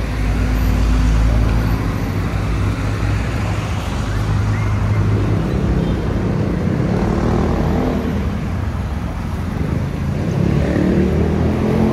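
Road traffic: vehicle engines running and passing in a steady low rumble.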